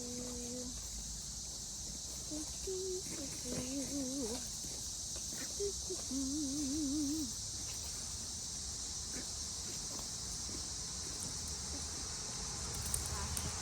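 Steady high-pitched chorus of insects such as crickets, with a few short wavering voice-like sounds low in pitch a few seconds in and again around the middle.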